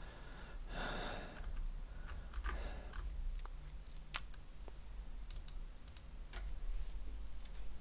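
A few faint, scattered clicks from a computer mouse and its scroll wheel as a web page is scrolled. A couple of soft breaths come in the first few seconds.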